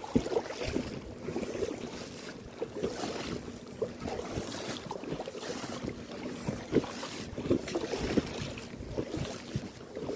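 Paddle strokes from an inflatable kayak, the blades splashing and dripping into the sea in a loose repeating rhythm, with wind buffeting the microphone.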